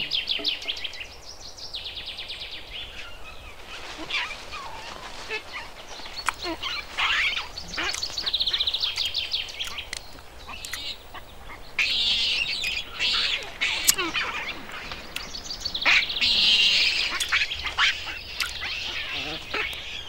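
Forest ambience full of bird calls: short high chirps and, several times, rapid chattering trills that come and go.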